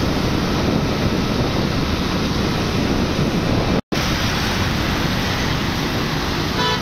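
Steady wind rushing over the microphone, mixed with traffic and tyre noise from riding along a wet road. The sound cuts out for an instant a little past halfway.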